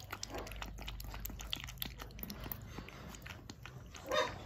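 Puppy lapping milk from a small steel bowl: a quick, irregular run of soft wet clicks and slurps.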